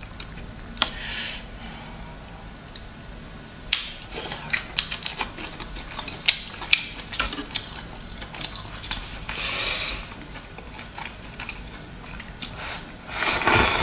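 Close-miked eating: prawn shell being peeled, then chewing with many small crackling clicks and mouth smacks. Near the end comes a louder stretch of slurping noodles.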